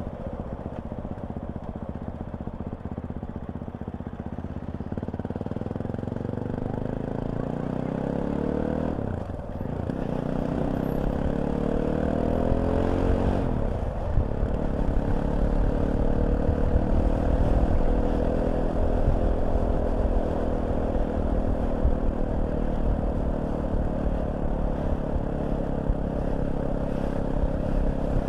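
Fantic Caballero 500 motorcycle's single-cylinder engine accelerating through the gears, its pitch climbing and then dropping at two upshifts about nine and fourteen seconds in, then running steadily at cruising speed.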